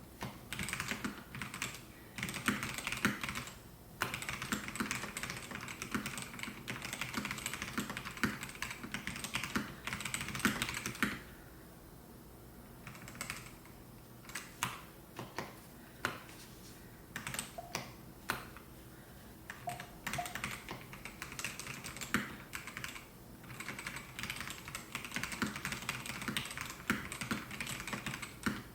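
Typing on a Melgeek Mojo68 mechanical keyboard with white Pro switches: fast runs of keystrokes broken by short pauses, and a stretch of slower, single keypresses in the middle.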